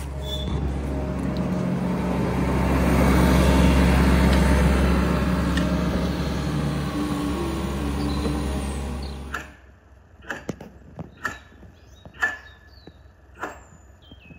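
Diesel engine of a yellow rail-mounted excavator running as it travels along the track close below, growing loudest a few seconds in and then easing; it stops abruptly about nine seconds in. Then comes a series of sharp knocks with a short ring, about one a second, from the gang working on the track.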